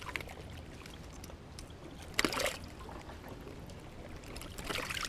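Faint moving water, with two short noisy bursts, one about two seconds in and one near the end.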